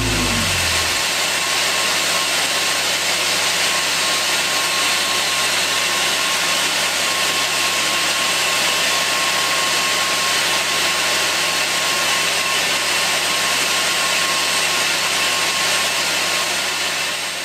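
FS-Elliott centrifugal air compressors running in their compressor hall: a steady, dense machine noise with a faint steady whine and a low hum under it.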